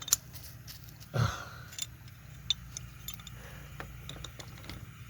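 Scattered light metallic clicks and clinks of a hand wrench being handled on plastic irrigation fittings, with a dull knock about a second in, over a low steady hum.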